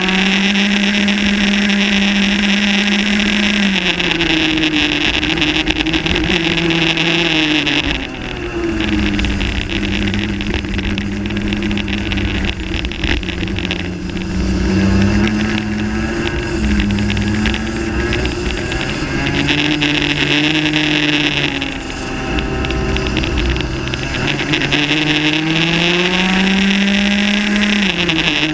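Rotax Max 125cc single-cylinder two-stroke kart engine heard close up while racing. It holds high revs on the straights, drops in pitch several times as the throttle is lifted for corners, and climbs again under acceleration. Near the end it rises high, then falls off sharply.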